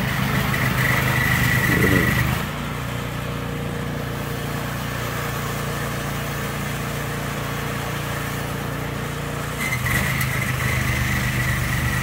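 Homemade 'Franken blower' snowblower, a John Deere DRS-27 fitted with a Princess Auto replacement engine, running steadily while it clears heavy wet snow. The engine sound drops a little about two seconds in and comes back up near ten seconds.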